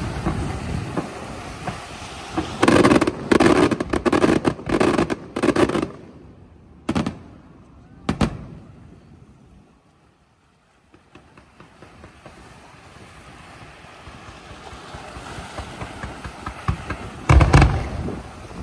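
Fireworks display: crackling at first, then a rapid string of loud shell bursts about three seconds in, two single bangs around seven and eight seconds, a lull of a few seconds, and another loud bang near the end.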